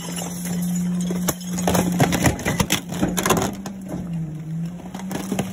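Rear-loader garbage truck compacting trash: a steady hum from the truck that sags briefly in pitch under load, with a run of cracks and crunches in the middle as furniture and a car seat are crushed in the hopper.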